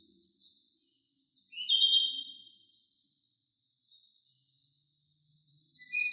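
Crickets chirping in a steady high trill, with two louder bird chirps, one about two seconds in and one near the end.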